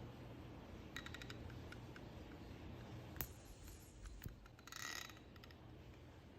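Faint clicks from a rechargeable electric arc lighter being handled and switched on, with a quick run of clicks about a second in and a sharper click a little later. A short buzz about five seconds in.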